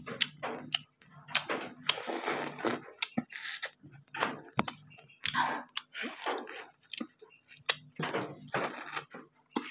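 Close mouth sounds of eating: wet chewing and lip-smacking in short, uneven bursts, with crunches and sharp clicks.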